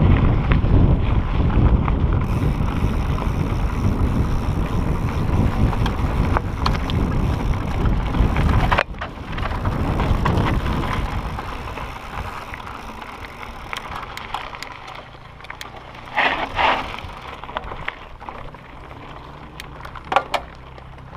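Mountain bike descending a loose, rocky singletrack, with wind noise rumbling on the camera's microphone and tyres and frame rattling over stones. About nine seconds in the wind rumble cuts off abruptly. After that there are quieter crunching and clicking sounds from the bike on gravel, and two brief louder clatters later on.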